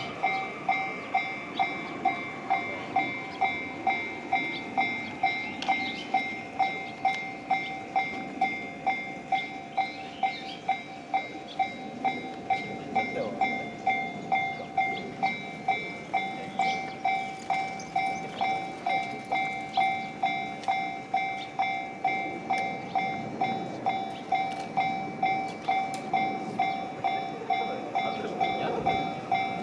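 Japanese railway level-crossing alarm ringing its repeated "kan-kan" strokes, about two a second and evenly paced, while a train rumbles through the crossing beneath it.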